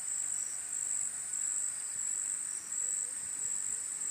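Steady high-pitched chirring of insects, with a couple of faint short chirps above the background.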